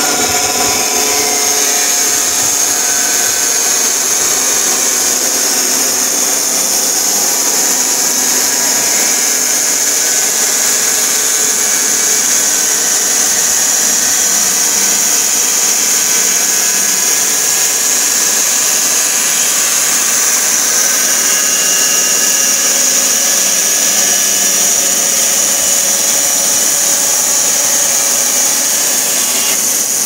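Rhino 500 band sawmill cutting lengthwise through a log: the band-saw blade and its motor running steadily under load, with a steady high-pitched whine.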